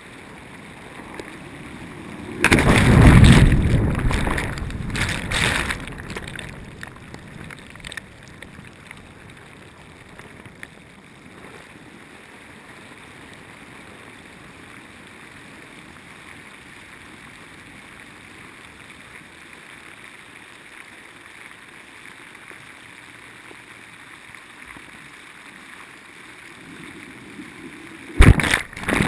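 Churning water heard muffled through a GoPro's waterproof housing. A loud turbulent rush comes about two to six seconds in, then a long stretch of steady low hiss, and another loud rush near the end.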